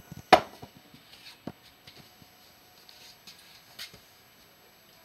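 Glass canning jars, hot from the oven after sanitising, clinking as they are lifted out and set down on the counter: one sharp clink about a third of a second in, then a few fainter knocks.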